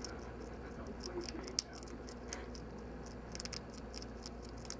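A hedgehog chewing a piece of cat food: small, irregular crunching clicks, one sharper about a second and a half in and a quick cluster past three seconds, over a faint steady low hum.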